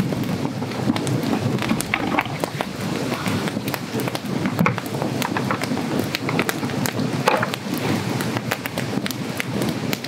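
Wood campfire burning, with a steady low rush and frequent sharp crackles and pops from the burning logs.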